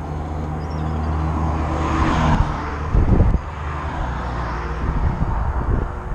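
Road traffic on the bridge: a vehicle passing, its noise building to a peak about two seconds in and then easing, over a steady low engine hum. A short burst of low thuds comes about three seconds in.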